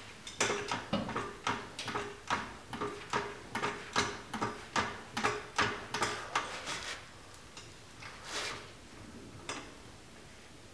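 Floor jack being pumped by its long handle to lift the front of a car, with a steady run of clicks about two to three a second. The clicking stops about seven seconds in, followed by a few scattered knocks.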